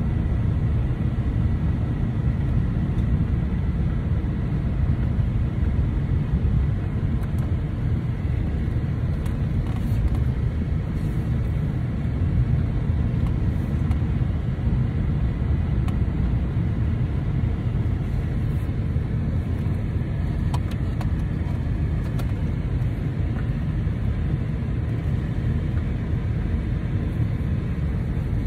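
Steady low rumble of a car driving, heard inside the cabin: engine and road noise.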